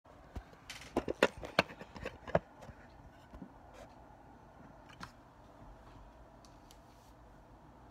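Phone being handled close to its microphone: a quick cluster of knocks and rubbing taps in the first couple of seconds, then low room tone with a few faint clicks.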